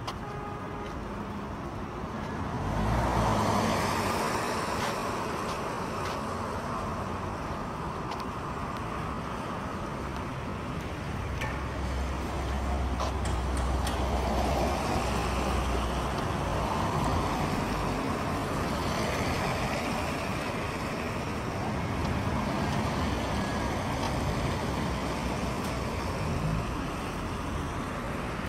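Road traffic passing on a wet road: cars go by with tyre hiss, a loud pass about three seconds in and a deep engine rumble in the middle.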